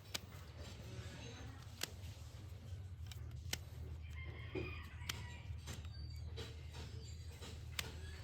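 A few sharp metal clicks or light taps, spaced irregularly, over a steady low hum, with a short wavering call about halfway through.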